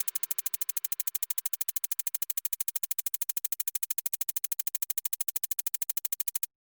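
Rapid, perfectly even electronic pulsing, about thirteen sharp clicks a second, that cuts off abruptly near the end.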